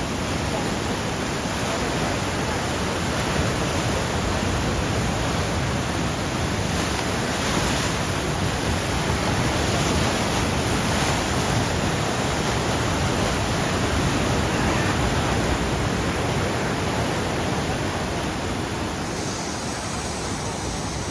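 Steady rushing roar of heavy ocean surf, swelling a little in the middle and easing slightly near the end.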